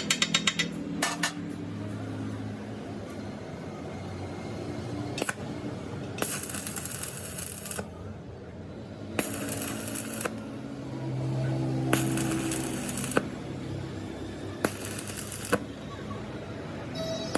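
Metal lathe work: a low motor hum, sharp metallic clicks and clinks, and four separate hissing, scraping bursts of about a second each, spaced a couple of seconds apart.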